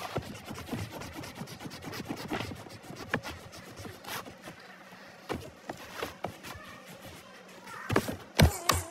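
Coloured pencils scratching and tapping on paper in quick, irregular strokes, with a couple of louder knocks near the end.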